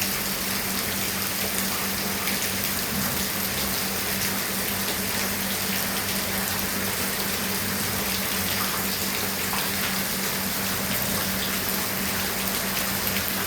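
Rain falling steadily, an even splashing hiss of water, with a steady low hum underneath.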